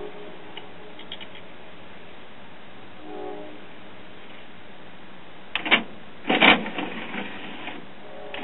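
Two short knocks a little under a second apart, over a low steady background hiss.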